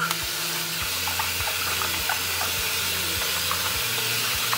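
Tap water running steadily into a glass bowl of water, splashing as an apple and limes are rubbed clean under the stream.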